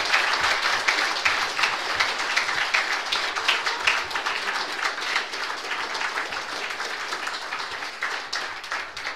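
Audience applauding a speaker, many hands clapping at once, slowly dying down toward the end.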